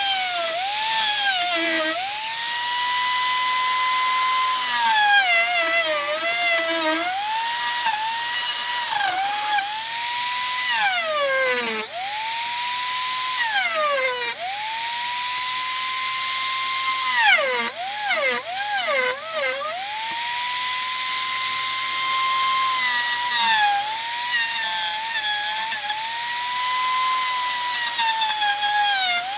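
Dremel rotary tool with a cut-off wheel running at high speed and cutting a hinge notch into the edge of an acrylic sheet. The high whine repeatedly sags in pitch as the wheel is pressed into the plastic, then climbs back to a steady tone when the pressure comes off.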